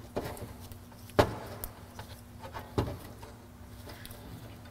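Small metal clicks and clatter of a carburetor linkage lever being worked loose by hand, with two sharper clicks about a second and a half apart.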